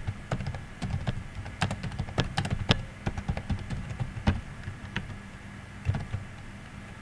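Typing on a computer keyboard: a quick run of keystrokes in the first half, then a few single key presses.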